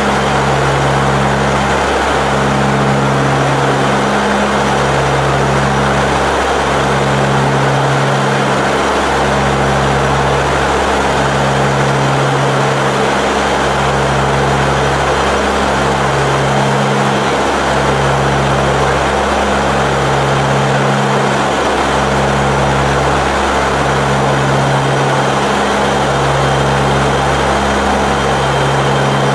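Lockheed C-130 Hercules's four turboprop engines running steadily: a loud, even rush with a low propeller drone that wavers and breaks every second or two.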